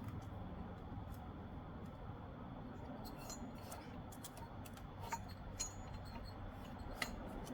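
Faint hand work at close range: a few light clicks and short scratches, scattered mostly through the second half, as reference lines are drawn with a marker on the piston of a chainsaw engine.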